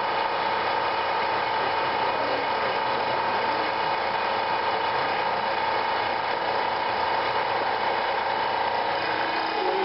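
Hydraulic pump of a structural test rig running steadily with a constant whine as it drives the loading ram toward a concrete girder. A second, lower tone joins near the end.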